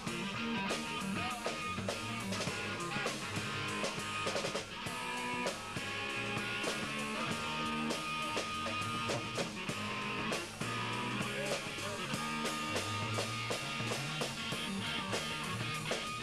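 A rock band playing: a drum kit keeping a steady beat with cymbal hits, under guitar.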